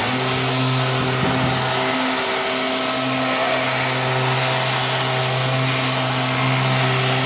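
Dust-extraction vacuum starting up abruptly and running steadily with a hum and airy hiss, pulling air through the hose of a sanding block worked over body filler on a car door.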